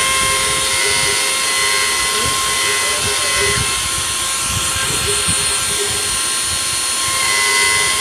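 Small CNC router's spindle running with a steady high whine while an engraving bit mills isolation traces into a copper-clad circuit board.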